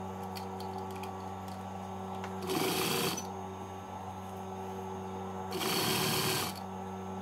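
Electric sewing machine stitching gold zigzag lace trim onto fabric in two short runs, about two and a half seconds in and again about five and a half seconds in, each under a second long, over a steady low hum.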